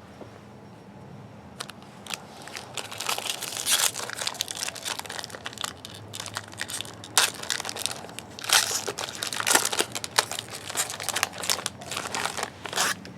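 Crinkling and tearing of a foil trading-card pack wrapper being ripped open, a dense run of irregular crackles starting about a second and a half in.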